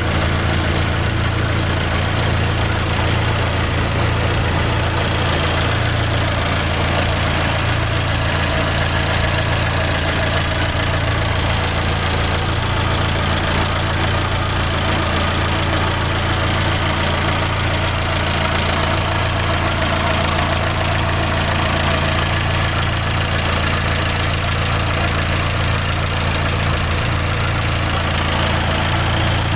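Fiat Palio Fire 8-valve four-cylinder engine idling steadily. It is running to circulate water through the cooling system during a flush.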